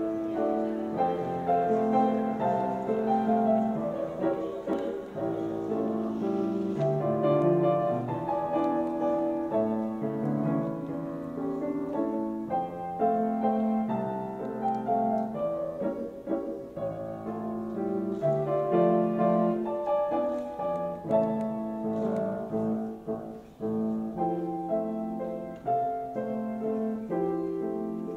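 Slow classical piano music playing as a processional, moving through steady chords.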